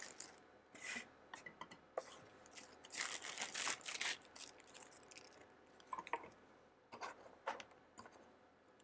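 Clear plastic bag crinkling and rustling in irregular bursts as a power adapter is unwrapped from it.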